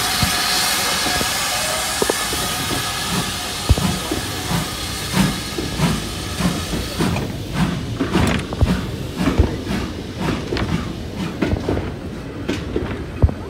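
A GWR steam locomotive hauling a goods train slowly past at close range. Steam hisses at first and fades out about halfway through. Then the goods wagons roll by, their wheels knocking and clicking over the rail joints in an irregular rhythm with a low rumble.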